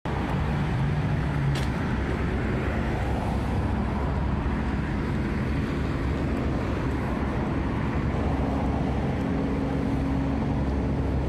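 Steady city road traffic noise, with the low hum of passing vehicle engines.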